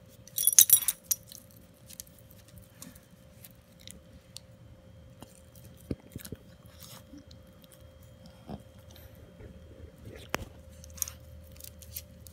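Metal tags on a Yorkshire Terrier's collar jingling, loudest in a short burst about half a second in, followed by scattered light clicks and taps as the dog moves about on a hardwood floor.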